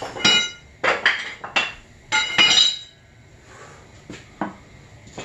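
Loose metal parts and tools clinking and clattering together as they are handled, in four ringing bursts over the first three seconds, then two lighter knocks.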